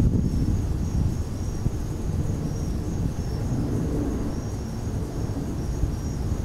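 Wind buffeting the microphone in a steady low rumble, the loudest sound. Over it, crickets and other night insects chirp in short high-pitched pulses repeating about once or twice a second.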